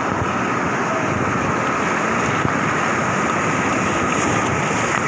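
White-water river rapids rushing steadily over rocks, loud and close to the microphone.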